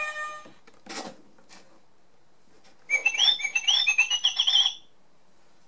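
Electronic bird tweeting from a children's sound book's speaker: a fast run of short, rising chirps lasting about two seconds. Before it, a musical riff fades out and a soft thump is heard about a second in.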